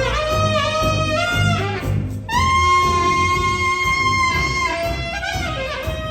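Saxophone section of alto, two tenors and baritone playing a jazz tune over bass guitar and piano. About two seconds in, the saxophones hold one long note for about two seconds, then move on.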